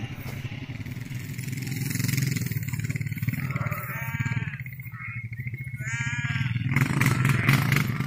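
A small vehicle engine running steadily, with sheep bleating twice, about four and six seconds in; the engine grows louder near the end.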